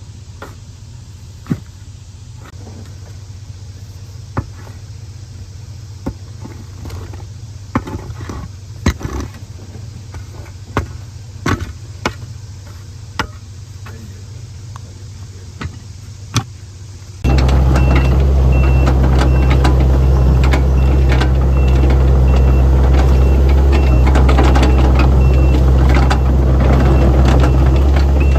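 A heavy work machine's engine running low and steady, with scattered sharp knocks and clicks. About two-thirds of the way in the engine becomes much louder, and a reversing alarm beeps repeatedly, about once a second.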